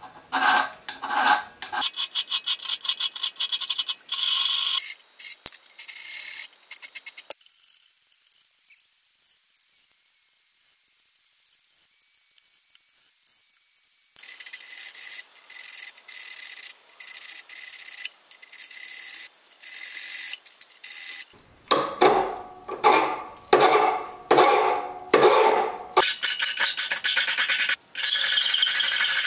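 Hand file rasping across a steel knife blade in repeated back-and-forth strokes, filing the edge bevel true. The strokes grow fainter for several seconds in the middle, then come back strong.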